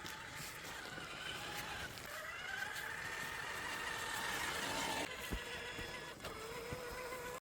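Electric motor of a Traxxas Summit RC truck whining, its pitch rising and falling with the throttle, with a few sharp clicks and knocks from the truck driving over rough ground. The sound cuts off abruptly near the end.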